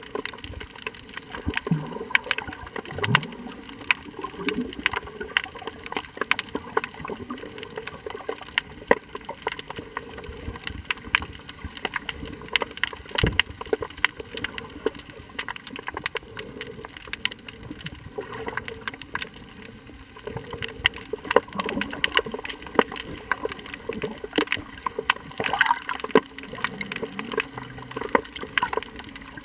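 Underwater sound picked up by a submerged camera: water noise with a constant crackle of sharp clicks and a few low gurgles in the first few seconds.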